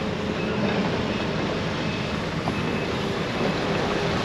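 A vehicle engine running steadily under an even hiss of rain.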